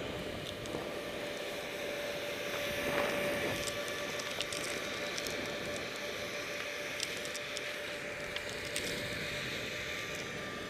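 Skis sliding over packed snow on a downhill run, with wind rushing over the camera's microphone: a steady rushing noise with a few faint clicks.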